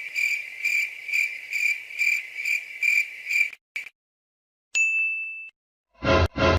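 Cricket-chirping sound effect: a high, steady chirp pulsing about twice a second for three and a half seconds. About five seconds in comes a single short ding, and a loud new effect starts near the end.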